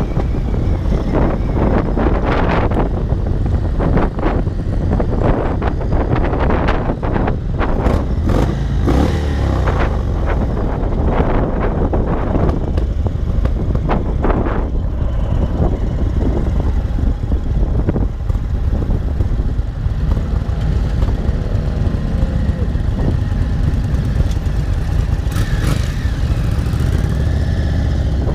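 2022 Indian Chief Dark Horse's air-cooled Thunderstroke 116 V-twin running while the bike is ridden down the road, heard from the rider's seat under heavy wind noise on the microphone.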